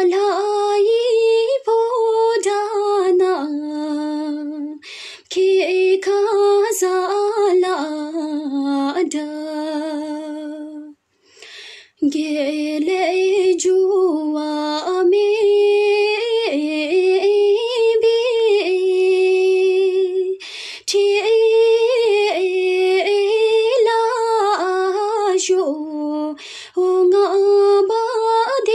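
A woman singing a Bhutanese song unaccompanied, in long held phrases with the pitch wavering and ornamented on each note. A few brief breaks come between phrases, the longest about eleven seconds in.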